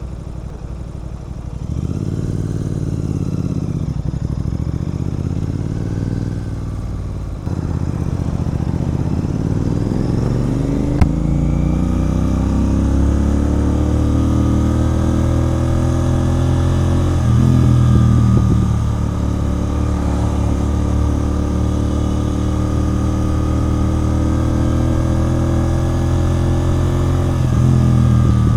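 Royal Enfield Continental GT 650's parallel-twin engine running through a loud aftermarket Red Rooster Performance exhaust while riding. It stays at low, uneven revs at first. From about eight seconds in it pulls up through the revs, with a short break in the note a little past halfway, then holds a steady cruising note.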